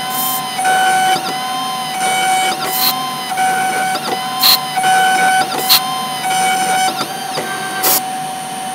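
Small CNC engraving machine cutting lettering into a metal part: a steady high spindle whine, with the axis motors whirring in short gliding spurts as the cutter moves between strokes, and sharp ticks now and then.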